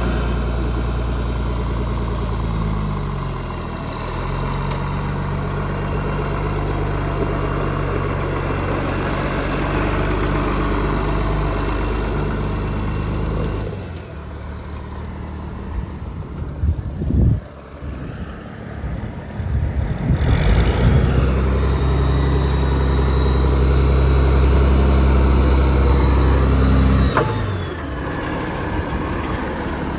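International 1066 tractor's turbocharged six-cylinder diesel engine running. The engine speed drops about 3 seconds in, and the engine goes quieter for several seconds in the middle, with a few clunks. It then runs hard with a high turbo whine before throttling back near the end.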